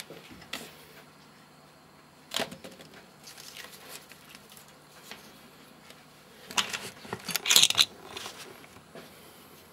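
Hand handling noises: short rustles, scrapes and crackles from working with an LED strip and its backing. A louder cluster of crackling and rustling comes about seven to eight seconds in, as the camera is handled.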